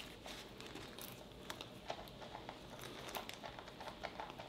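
Faint handling noises of a travel mug turned over in the hands: scattered small clicks and scrapes of the mug and its lid.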